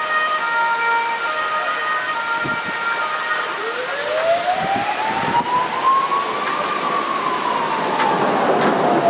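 Rain falling steadily. About three and a half seconds in, a siren wails in one slow rise and fall.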